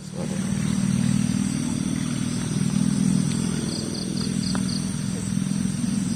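Steady low engine-like hum of a motor running, with a faint string of five short high chirps near the middle.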